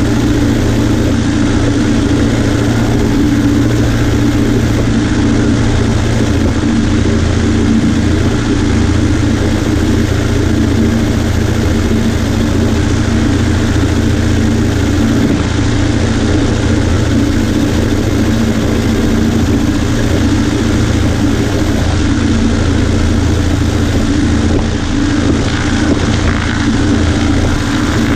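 Cessna 140A's piston engine and propeller running at a steady, unchanging speed: a loud, continuous drone.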